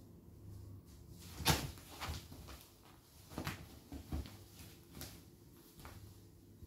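Cats scuffling on a bed cover: a series of soft thumps and rustles as a kitten pounces on and wrestles with a larger cat. The loudest thump comes about one and a half seconds in, with more over the next few seconds.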